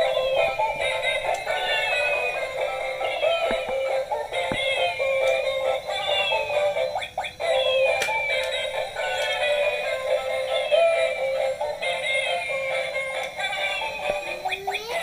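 Tinny electronic melody from battery-operated musical toys, a synthetic chiptune-style song with a falling chirp repeating about once a second, broken by a few sharp clicks.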